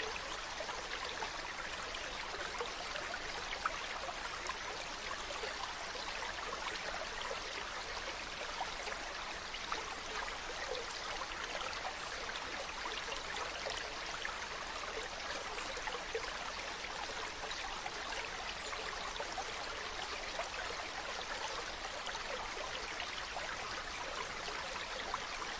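Steady running water, trickling and splashing evenly.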